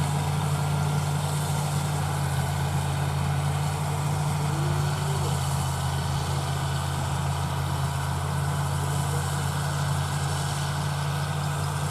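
A heavy farm diesel engine running steadily at a constant speed, giving a low, even drone.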